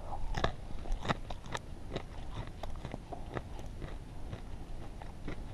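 A person chewing crispy fried bacon: irregular, sharp crunches.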